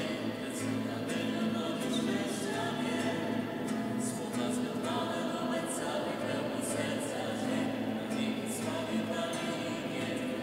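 A small group of voices singing a slow worship hymn together in long held notes, with an acoustic guitar accompanying them.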